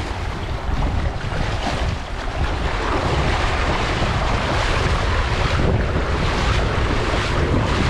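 Wind buffeting the microphone: a steady rush of noise with an uneven low rumble.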